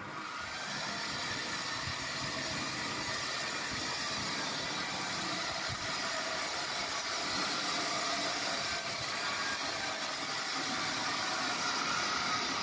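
Steady machine-like running noise, an even hum and hiss that starts abruptly and holds without a break.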